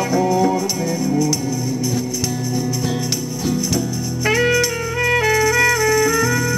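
Instrumental close of a bolero: a saxophone plays the melody over a steady tambourine jingle and a low accompaniment, with a new held melodic phrase coming in about four seconds in.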